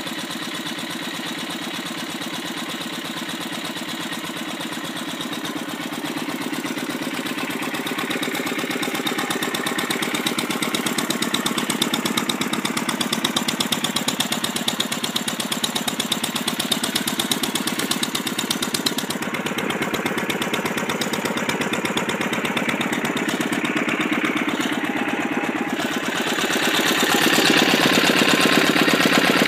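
Wolseley WD8 single-cylinder air-cooled stationary engine running steadily at a slow even beat, just brought back to life with cleaned points and plug. It gets louder near the end.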